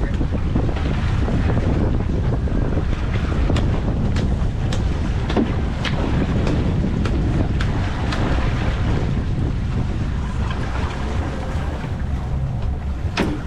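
Wind buffeting the microphone and water rushing past a small fishing boat under way, a steady heavy noise, with a dozen or so short sharp knocks and clicks scattered through it.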